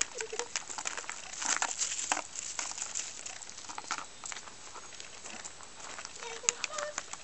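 Gravel crunching irregularly under a puppy's paws and a person's shoes as they move about, with louder crunches here and there. A few brief high-pitched voice-like sounds at the very start and again near the end.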